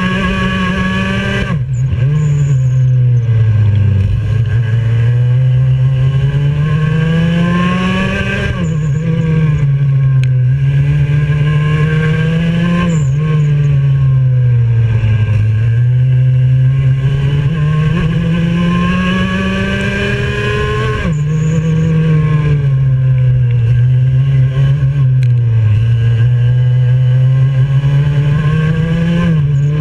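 IAME X30 125cc single-cylinder two-stroke kart engine at racing speed, heard close to its exhaust silencer. The note climbs steadily along the straights and drops sharply about four times as the throttle is lifted for corners, then picks up again.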